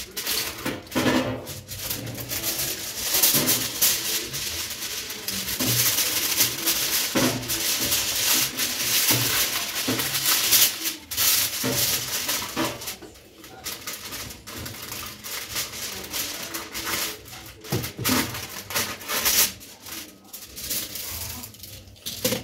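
Aluminium foil crinkling and rustling as it is smoothed, folded and trimmed to line a baking tray, in dense irregular crackles that ease off briefly around the middle and again near the end.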